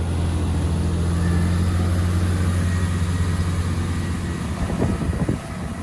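Class 166 diesel multiple unit pulling out: a steady, low diesel engine drone that fades about four and a half seconds in, with a few low thumps near the end.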